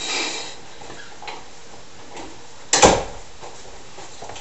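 A single sharp knock or thump about three seconds in, loud against quiet room tone.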